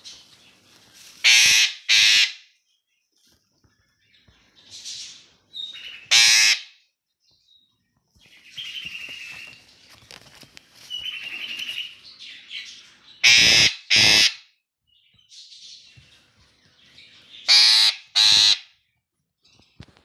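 Female eclectus parrot squawking. It gives loud calls about four times, three of them as quick pairs of squawks, with softer chattering calls in between.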